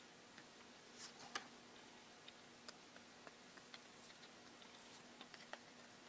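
Near silence broken by faint, irregular small clicks and taps as fingers handle a thin plastic base with wire nails set in it, one sharper click about a second and a half in. A faint steady hum underneath.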